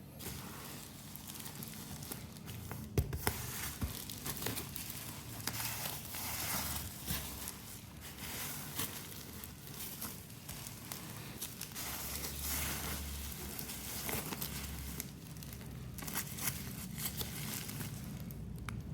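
Packaging being handled and opened: irregular crinkling, rustling and tearing of wrapping material, with a sharp click about three seconds in.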